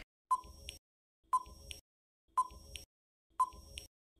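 Countdown timer sound effect: four short beeps about a second apart, each followed by a fainter click.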